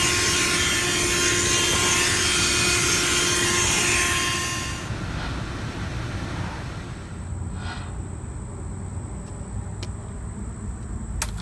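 Black & Decker 12V corded car vacuum motor running with a steady whine, then stopping about four and a half seconds in. A low rumble remains afterwards, and there is a sharp click near the end.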